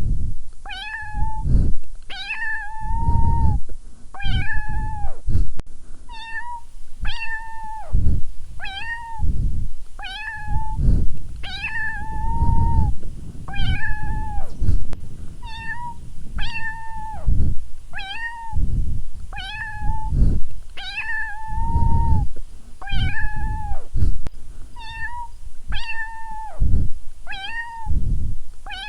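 Kitten meowing over and over, about one high-pitched meow a second.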